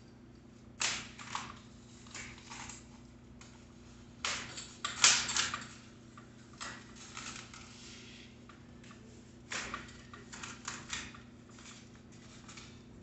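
Irregular bursts of clicking and clatter from hands-on work on a mountain bike's rear wheel and drivetrain, the loudest cluster about five seconds in.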